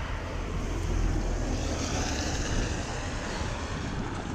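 Wind rumbling on a GoPro's microphone over a steady hiss. The hiss swells briefly about two seconds in.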